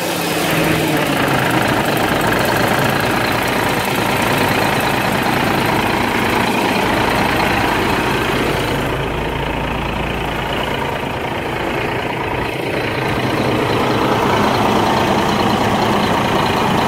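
Freshly rebuilt Mack E7 inline-six diesel engine idling steadily in the truck.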